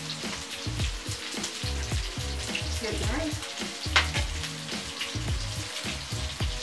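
Food frying in hot oil in a pan, sizzling steadily while it is stirred, with scattered utensil clicks and one sharper clack about four seconds in.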